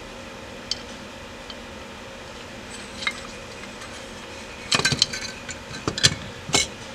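Light metallic clicks and clinks of a carburetor air horn being set and seated onto the carburetor body by hand: a few scattered ticks, then a quick cluster of louder knocks near the end.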